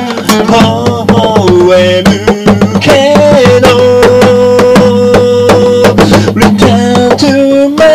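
Music: a steady percussive beat under a melody line that wavers early and then holds one long note through the middle.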